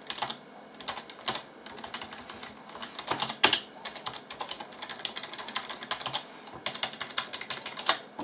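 Typing on a computer keyboard: irregular key clicks, with quick runs where the same keys are struck over and over, and one louder keystroke about three and a half seconds in.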